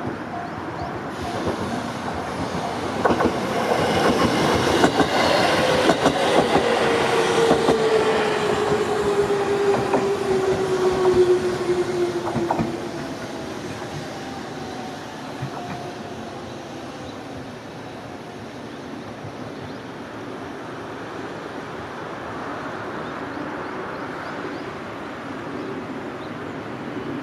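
An electric train passes over a level crossing, wheels clattering over the rail joints, with a whining tone that falls steadily in pitch as it goes by. The loud part ends about twelve seconds in, leaving a quieter rumble as the train runs on into the distance.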